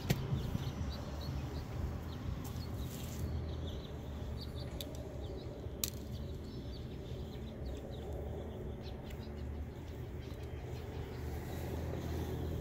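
Street ambience: a steady low hum with scattered short bird chirps, and a single sharp click about six seconds in.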